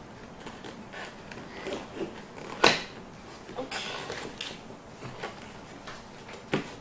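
A cardboard gift box being slid apart by hand, the inner box scraping out of its sleeve, with scattered taps and a sharp knock about two and a half seconds in.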